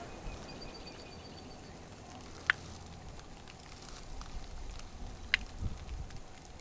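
Quiet outdoor background with a low rumble, a faint rapid high pulsing trill lasting about a second early on, and two sharp clicks about three seconds apart.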